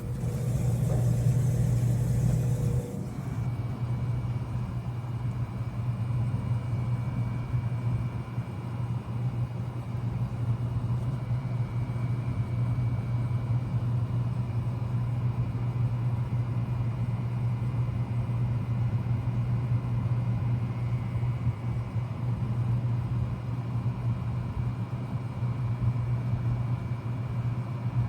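2007 Bard 3.5-ton wall-hung heat pump running in heat mode: a steady low hum with faint steady whining tones above it. A hiss over the top stops suddenly about three seconds in.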